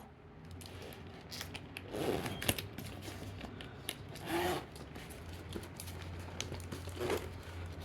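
Quiet handling sounds: rubbing, scraping and a zipper being pulled as a Loungefly carrier bag is opened, with a few louder rustles.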